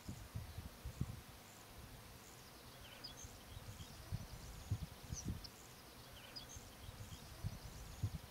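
Open-air grassland ambience: irregular low rumbles of wind on the microphone, with a few short high chirps of small birds from about three seconds in.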